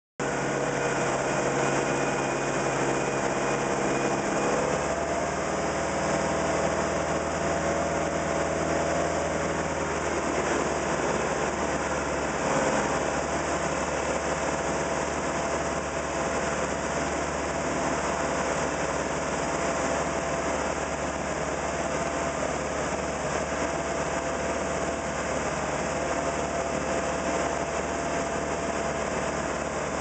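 Bayliner 175 speedboat's sterndrive engine running under way at cruising speed over the steady rush of churning water and wake. The engine note shifts twice in the first ten seconds, then holds steady.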